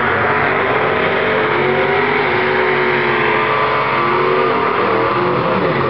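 Two drag cars doing burnouts at the starting line: engines held at high revs while the rear tyres spin and smoke. Loud and steady, the engine pitch wavering only slightly.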